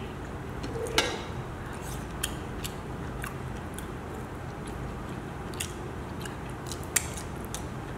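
A person chewing food, with scattered small clicks and taps from plate or fingers; the sharpest click comes about a second in. A steady low hum runs underneath.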